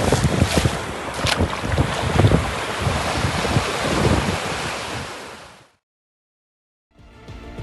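Small waves washing in at the shoreline, with wind buffeting the microphone in gusts. It fades out about three-quarters of the way through, followed by a second of silence and then music starting near the end.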